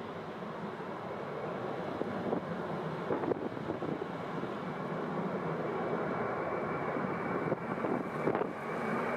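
Airplane engine noise with wind buffeting the microphone, a steady rushing sound with a faint high whine above it.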